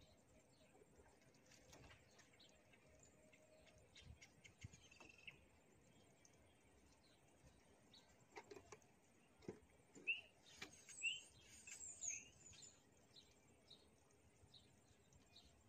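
Faint bird chirps, clustered about two-thirds of the way in, over near silence, with a few soft clicks shortly before them.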